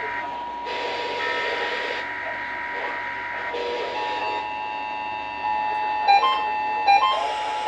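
Emergency Alert System attention tones from several broadcast stations overlapping: steady electronic tones, with shorter tones starting and stopping above them. From about six seconds in, quick repeated beeps.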